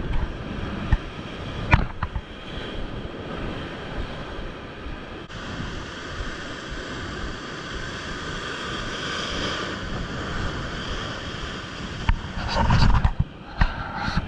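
Sea surf breaking and washing over shore rocks, with wind buffeting the microphone. There are a few sharp knocks, and a louder rush with knocks about two seconds before the end.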